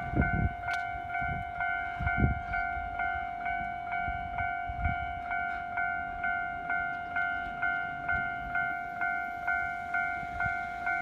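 Japanese level crossing's electronic warning bell ringing in a steady, even rhythm of about two strikes a second. A few heavy low thumps come under it in the first couple of seconds, the loudest about two seconds in, and one more near the middle.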